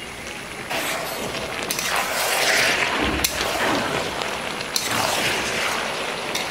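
A thick vegetable and fish-head curry sizzling in an open pan, the hiss swelling and easing several times. There are a few sharp clicks of metal on the pan along the way.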